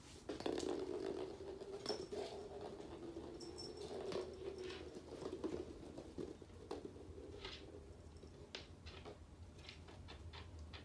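Small hollow plastic ball rolling across a laminate floor for about six seconds, followed by scattered light taps and scrabbles of kittens' paws on the floor.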